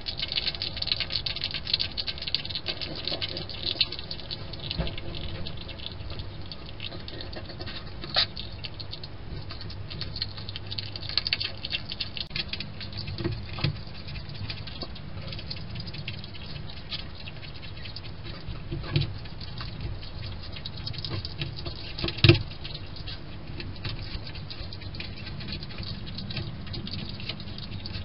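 A young hedgehog eating from a dish, its chewing a fast, irregular run of small clicks, thickest in the first few seconds. A single louder knock comes about 22 seconds in.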